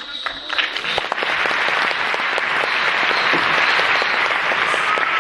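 Audience applauding, swelling up within the first second and then going on steadily.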